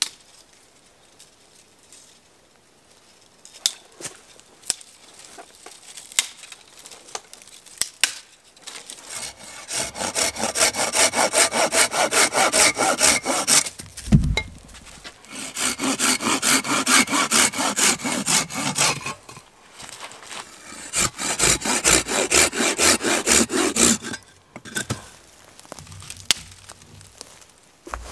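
Curved-blade hand saw cutting through a thin wooden pole in three long runs of quick back-and-forth strokes, with a single thump between the first and second runs. A few scattered clicks and knocks come before the sawing starts.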